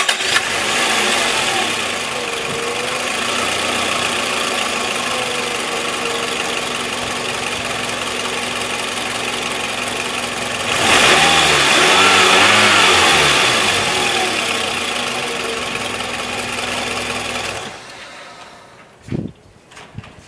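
Toyota Estima minivan engine running at idle right after starting, after a repair. Its speed rises for a few seconds about halfway through, then settles. It is switched off a few seconds before the end, followed by a few faint clicks.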